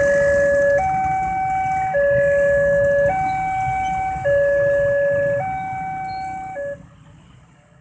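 Railway level-crossing warning alarm: an electronic two-tone signal switching between a lower and a higher tone about every second, sounding while the barrier arms lift after the train has passed. It cuts off about two-thirds of the way through, leaving a low rumble of waiting motorcycles.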